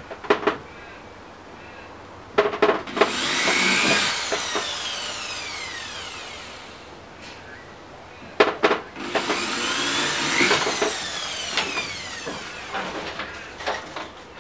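Electric drill run twice, each run speeding up with a few clicks and then slowly winding down, boring small screw holes through a plastic kayak hull for a flush mount rod holder.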